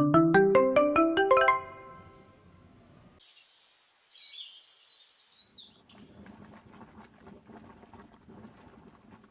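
A quick rising run of about ten bright chiming notes, a short musical sting, in the first second and a half. From about three seconds in, birds chirp for a couple of seconds with a high thin tone, and then only a faint low room hum is left.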